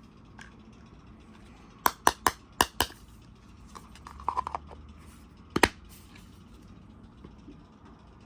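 Toys and their packaging being handled during an unboxing: five quick sharp clicks about two seconds in, a short rattle of lighter ticks around four and a half seconds, and one more loud click near six seconds.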